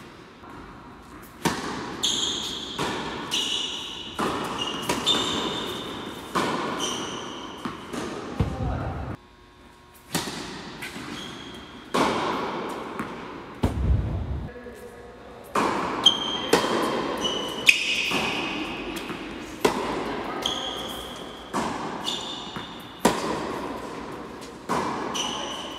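Tennis balls being struck by racquets and bouncing on an indoor hard court during several rallies, each hit echoing in the hall, with short high squeaks between many of the hits. A short pause between points about a third of the way in.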